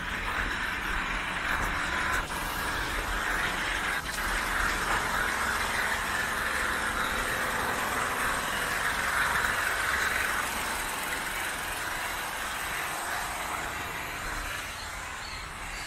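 Road traffic going by, a steady hiss and rumble that swells a little in the middle and eases off near the end.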